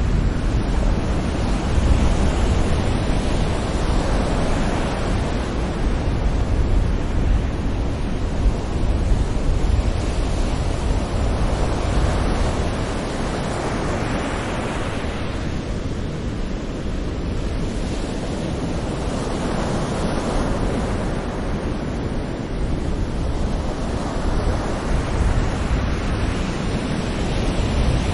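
Sea waves breaking gently on a shore, a steady wash of surf that swells and ebbs every few seconds, with a deep low rumble underneath.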